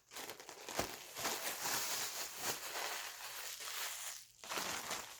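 Parcel packaging rustling and crinkling as it is handled and opened, with small crackles and tears, pausing briefly about four seconds in.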